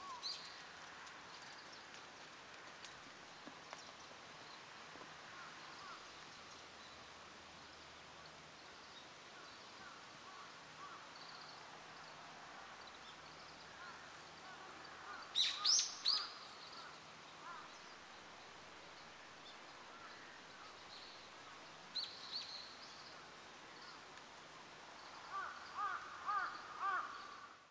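Outdoor ambience: a steady faint hiss with scattered bird calls, a burst of sharp high calls about halfway through, a short call about three-quarters in, and a run of quick chirps near the end.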